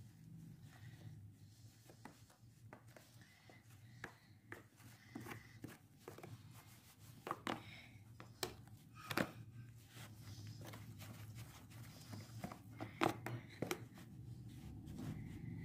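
Metal spoon stirring and scraping dough in a plastic tray, working blue water colour into homemade flour play dough, with irregular clicks and taps of the spoon against the tray.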